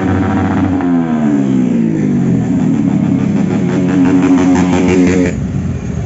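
Several motorcycles riding past one after another with their engines revving; the engine notes glide down in pitch as each bike goes by.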